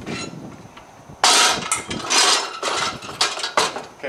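Metal hand truck clattering and clanking as it is rolled up and set against a refrigerator. A run of sharp rattles and knocks starts about a second in.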